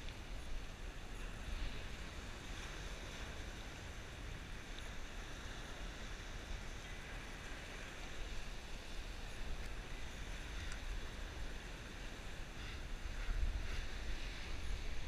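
Surf breaking on a sandy beach, with wind rumbling on the microphone; it swells a little louder near the end.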